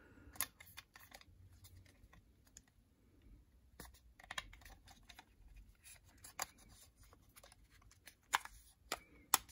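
Scattered small clicks and taps of a 2.5-inch SSD being handled and pushed into its drive caddy, with a few sharper clicks near the end.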